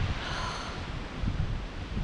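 Wind buffeting the microphone in an uneven low rumble, with a faint, brief higher sound about half a second in.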